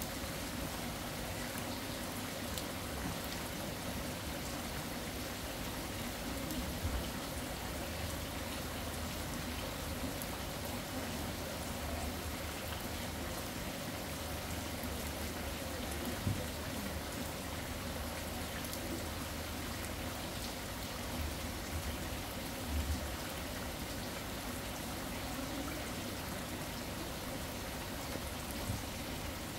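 Steady rain falling, an even hiss of drops with a few soft low thumps now and then.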